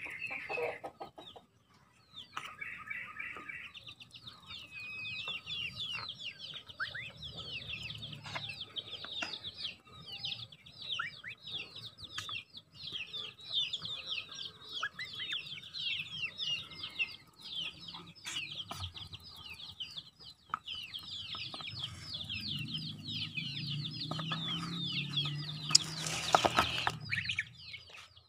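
Goslings a little over six weeks old peeping in quick, high, falling chirps, one after another almost without pause, while their bills click at dry feed in a plastic basin. Near the end, a low rumble and one loud knock.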